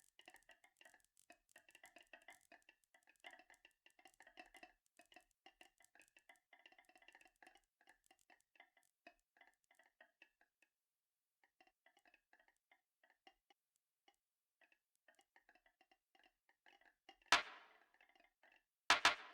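Marbles rolling and clattering along a marble run track: a faint, fast run of small clicks and rattles with a ringing tone, thinning out around the middle. Near the end, a few sharp, loud clacks as marbles strike hard against each other or the track.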